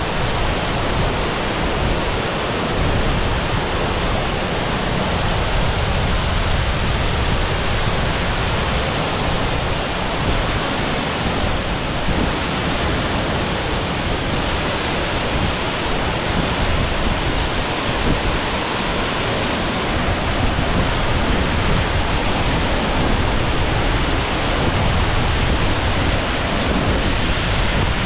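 Bâlea Waterfall heard close up: a loud, steady rush of falling water, a racket that drowns out everything else.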